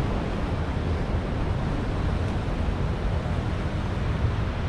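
Surf breaking on the beach with wind rumbling on the microphone: a steady noise with no distinct events.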